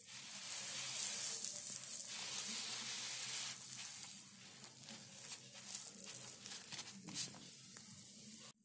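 Halved pav buns sizzling in butter on a hot iron tawa as they are pressed and turned: a steady hiss with small crackles, loudest over the first few seconds, cutting off abruptly near the end.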